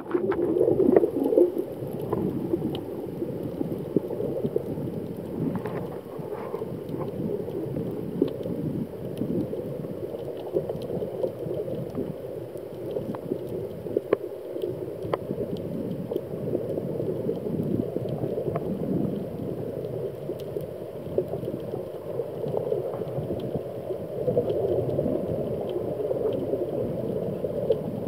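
Muffled underwater rumble and water noise picked up by an action camera in its waterproof housing as a freediver swims, with scattered faint clicks.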